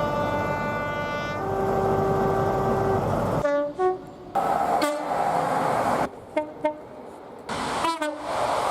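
Train two-tone horn sounding a long high note, then dropping to a low note. About three seconds in, several shorter train horn blasts follow, some sliding down in pitch.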